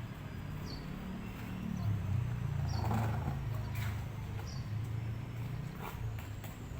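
A motor running with a low, wavering hum that swells about two to three seconds in, with scattered short clicks and knocks over it.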